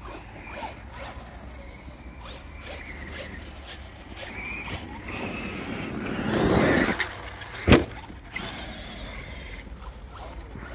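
Traxxas X-Maxx brushless RC monster truck driving on gravel, with a faint wavering motor whine and irregular clicks and rattles. It surges louder for about a second and a half around six seconds in, then there is one sharp thump just before eight seconds.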